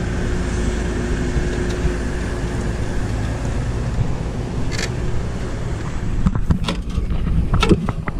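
A vehicle engine running steadily with a low rumble. From about six seconds in, a run of sharp knocks and clatter starts.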